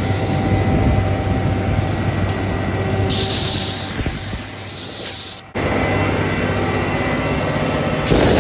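Water spraying from a hose at a concrete mixer truck washout, a steady hiss over the low hum of the truck running. The spray grows louder and brighter about three seconds in, and the sound drops out for a moment a little past halfway.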